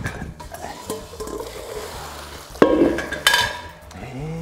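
Kitchen clatter of metal bowls and utensils being handled on a countertop, with two sharp ringing clanks about two and a half and three seconds in.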